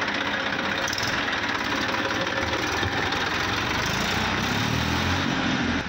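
Massey Ferguson tractor's diesel engine running steadily as the tractor is driven on a test run after its broken gearbox counter-shaft bearing was replaced. The low rumble grows heavier about four seconds in.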